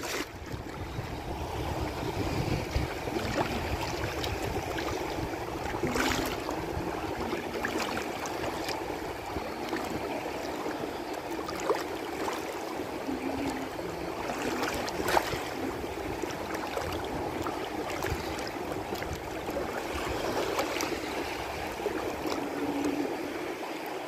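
Choppy water of the shallow Sea of Azov splashing and lapping close by, with wind rumbling on the microphone. A few louder slaps of water stand out, about six and fifteen seconds in.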